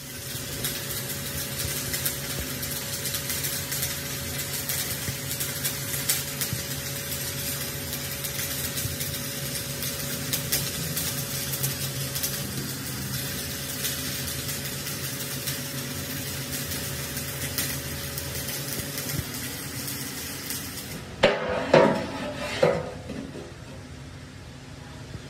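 Electric arc welding: a steady crackling sizzle over a low machine hum. The crackle stops about 21 seconds in and is followed by a few loud knocks.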